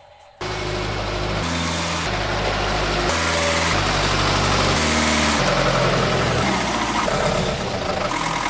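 Heavy engine-like running noise that starts suddenly about half a second in, its low tone stepping between a few pitches every second or so.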